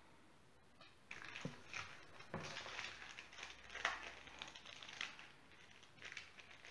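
Paper crinkling and rustling in irregular bursts as it is handled and folded, starting about a second in.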